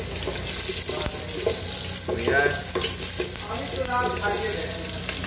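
Onion and garlic sizzling in hot fat in an aluminium pot while a metal spoon stirs and scrapes against the pot. Two brief pitched sounds stand out, the louder about two seconds in and another near four seconds.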